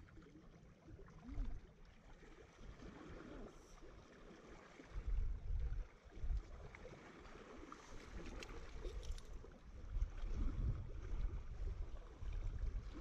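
Wind buffeting the microphone in irregular deep gusts, strongest about five seconds in and again from about eight seconds on, over a faint wash of sea water. A few faint clicks sound around eight to nine seconds in.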